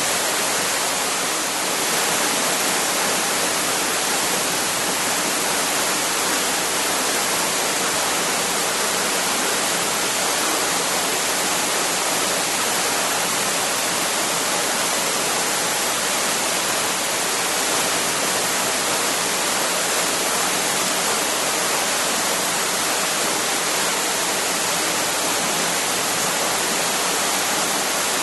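A waterfall rushing: a dense, steady roar of falling water that keeps an even level throughout, with no birds or other events.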